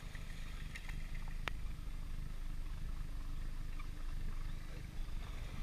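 Bass boat under way at low speed, a steady low rumble from its motor and the moving air, with a few faint bird chirps and one sharp click about a second and a half in.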